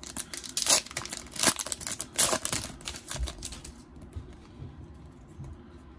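Foil wrapper of a Panini Chronicles basketball card pack being torn open by hand: a run of crinkling crackles over the first three seconds, then it goes quieter.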